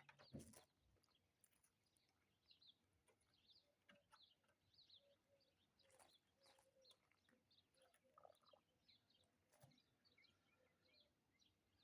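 Faint birdsong: small birds chirping in short, quick notes again and again, with a few soft clicks.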